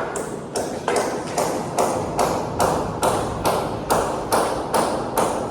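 Steady hammering: about two and a half sharp, slightly ringing strikes a second at an even pace.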